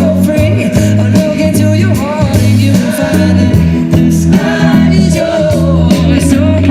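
Pop song with a male singing voice played loud through a car audio system with four 600 W RMS woofers, the bass notes heavy and sustained.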